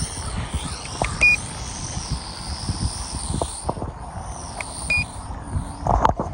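Two short electronic beeps from a drone or its controller, one about a second in and one near the five-second mark, over a high whine that wavers up and down, with wind rumbling on the microphone.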